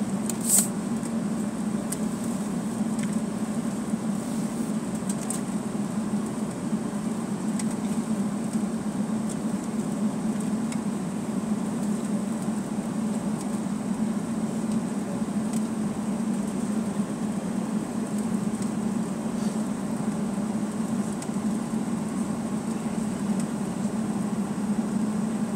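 Steady low cabin hum inside a Boeing 757-200 airliner taxiing at low engine power, with a single short click about half a second in.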